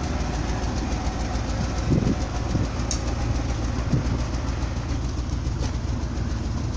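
Ford 700 dump truck's engine idling steadily.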